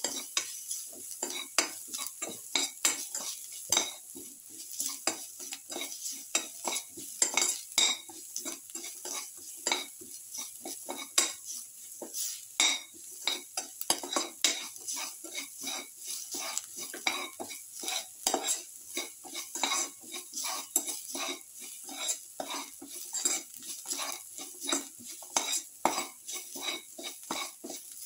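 Spatula scraping and clinking against a steel pan in quick, irregular strokes while stirring sliced onions and garlic frying in oil, with a light sizzle underneath.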